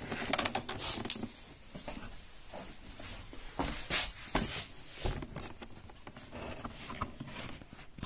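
Handling noise from a hand-held camera being moved around: light rustling and brushing with a few soft clicks and knocks, with a stronger rustle about four seconds in.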